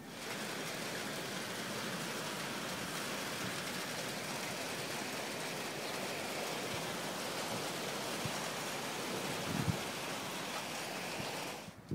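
Steady, even hiss of rain that starts and stops abruptly, with one brief low thump near the end.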